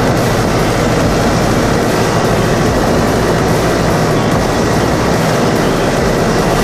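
New Holland TD5050 tractor's diesel engine working under load while its Tehnos flail mulcher shreds corn stalks: a loud, steady mechanical din.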